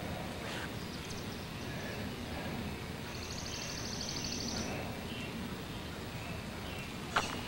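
Outdoor ambience with a steady low background rumble; midway, a small bird gives a rapid high trill lasting about a second and a half. Near the end comes a single sharp click.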